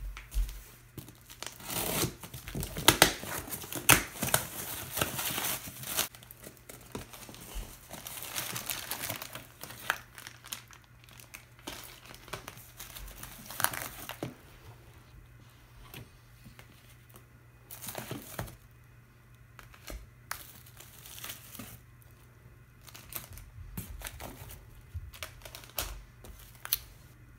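Plastic wrap and packing tape being torn off a cardboard box, with plastic air-pillow packing crinkling as it is pulled out; the rustling is densest in the first ten seconds or so. Later come sparser rustles and light clicks as phones are lifted out of the box.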